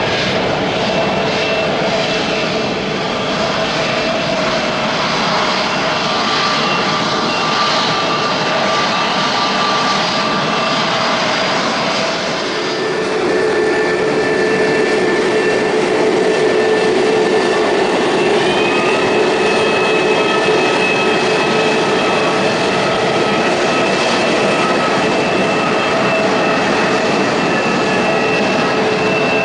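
Jet airliner engines running with a steady roar and high whining tones. About twelve seconds in, the sound of a second jet takes over, a little louder with a strong steady whine: a Jetstar airliner coming in to land.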